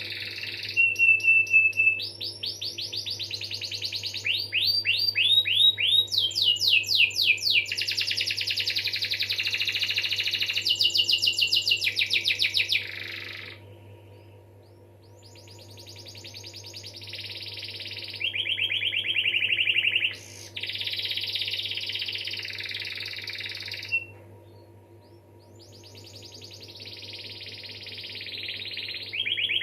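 Domestic canary singing long phrases of rapid trills and rolling runs (ngerol), fast repeated notes that change pitch from phrase to phrase, broken by two short pauses about 14 and 25 seconds in. A faint steady low hum lies underneath.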